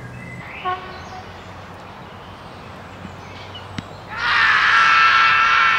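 A single sharp knock, then cricket fielders shouting a loud appeal together for a wicket, several voices held for a couple of seconds from about four seconds in.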